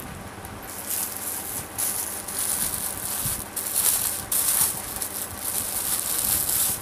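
Clothes being handled, rustling and crinkling in irregular bursts that start about a second in.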